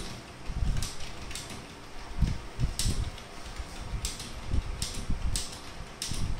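Typing on a Zebronics Zeb K35 slim membrane keyboard: separate, irregularly spaced key clicks, about one a second. The keys make a rubbing, grinding sound as they are pressed and feel slightly sticky.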